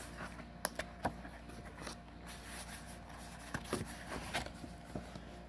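A taped cardboard shipping box being handled and opened by hand: scattered light taps, clicks and rubs of cardboard.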